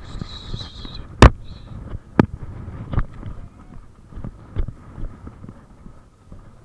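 Horse galloping on grass, heard close up from the rider's action camera: a steady run of dull hoofbeats, with several sharp knocks, the loudest about a second in.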